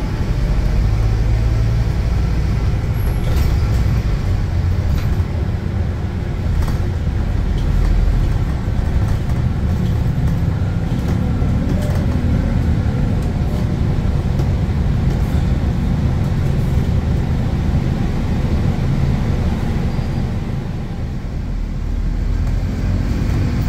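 Scania K280UB bus with a ZF automatic gearbox running under way: a steady, loud engine drone with light rattles. Near the end the engine note falls away, then rises again.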